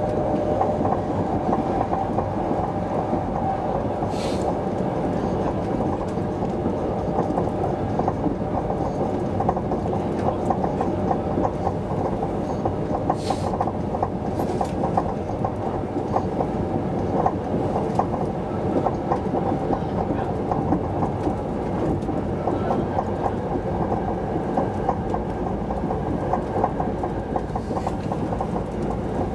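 Passenger-cabin running noise of an SJ 3000 (X55) electric train at speed: a steady rumble of wheels on rails with a fine, fast clatter. A few brief sharp clicks stand out, one about four seconds in and two more around thirteen to fifteen seconds in.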